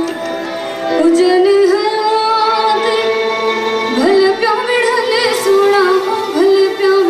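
A woman sings a Sindhi folk song live into a microphone. She holds long notes and decorates them with sliding, ornamented turns, over sustained musical accompaniment.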